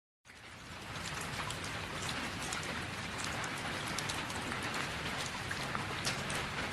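Rain sound effect: a steady hiss of falling rain with many small drop ticks, starting abruptly about a quarter second in.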